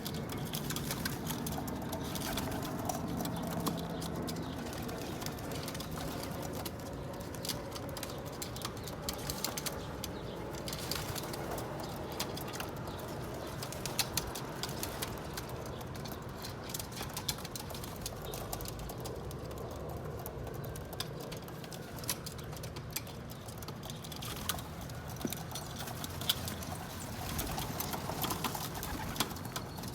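Pigeons cooing softly, with many small scattered clicks and taps of beaks pecking sunflower seeds.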